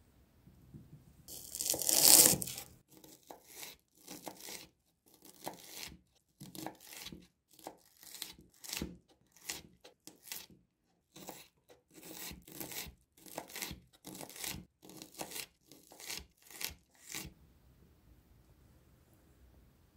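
Red onion being cut on a wooden cutting board: a loud, crisp tearing sound about a second in, then a knife chopping through the onion onto the board in short crisp strokes, about two a second, which stop about three seconds before the end.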